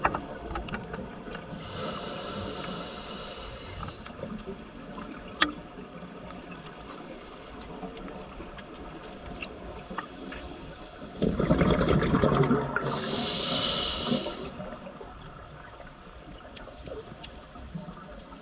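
Scuba diver breathing through a regulator, heard underwater through the camera housing: a hissing breath about two seconds in and another about thirteen seconds in, with a loud rush of exhaled bubbles starting about eleven seconds in and lasting some three seconds.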